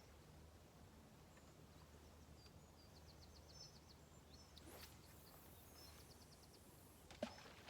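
Near silence by the river, with faint high bird chirps and a quick trill in the middle, and one sharp click about seven seconds in.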